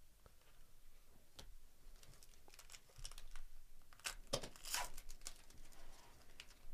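A 2024 Topps Series 1 baseball card pack's wrapper being torn open and crinkled by gloved hands, loudest about four to five seconds in. Before that come a few light ticks of cards being handled.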